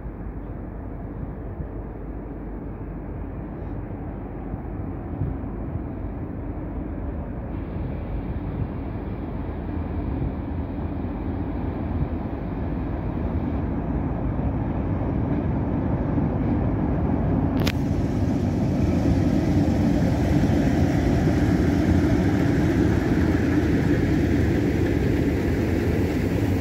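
Two RENFE Alco 2100-series diesel-electric locomotives running as they haul a train of vintage coaches into the station. The engine rumble grows steadily louder as they approach and pass, is loudest about three-quarters of the way through, and gives way to the coaches rolling by.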